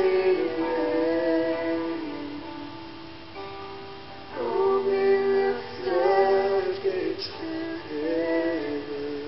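Live worship band music: a woman singing long held notes over keyboard and band accompaniment, in phrases that swell and fade. The loudest phrases come at the start, about four and a half seconds in, and about six seconds in, with a softer one near the end.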